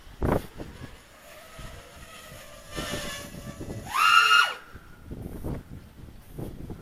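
A short horn-like honk about four seconds in, rising at its start and dropping away at its end, over a background of wind on the microphone. There is a single thump just after the start.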